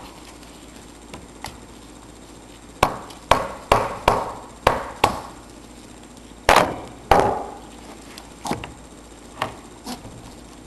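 Dead blow hammer striking a stuck part of a small Honda Trail engine to knock it loose: a run of about six blows, two harder ones, then a few lighter taps.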